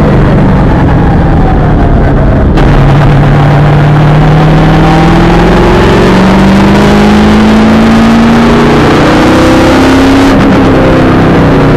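V8 supercar engine, heard loud from inside the cockpit under power. Its note climbs steadily for several seconds as the car accelerates, then drops back near the end.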